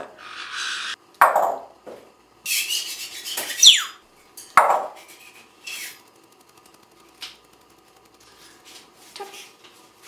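Broom sweeping with scraping and clattering on the floor, mixed with an African grey parrot's short sharp calls about a second in and just before the middle, and a high whistle falling in pitch just before the second call.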